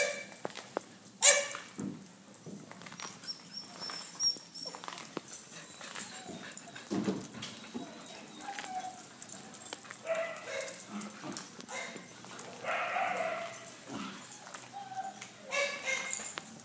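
Several small dogs barking now and then, with a sharp bark about a second in, shorter calls scattered in between and another bark near the end.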